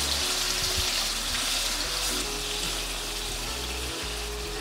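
Marinated beef chunks sizzling in hot avocado oil in a stainless steel skillet: a steady frying hiss that eases off a little, as the meat is seared over high heat to brown a crust. Faint background music underneath.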